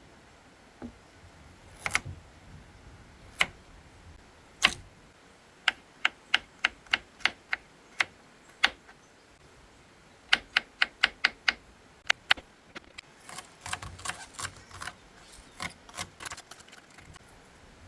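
A series of sharp knocks, a few single ones and then quick even runs of three to five a second with short pauses between runs, growing busier and more ragged near the end.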